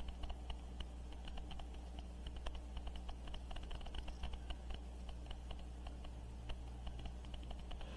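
Paintbrush brushing glue onto the wooden cabinet, a run of small irregular taps and clicks over a steady low hum.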